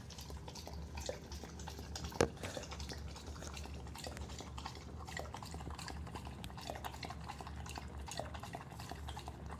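A dog lapping sparkling water from a plastic tub, a quick run of small wet clicks, with one sharper knock about two seconds in.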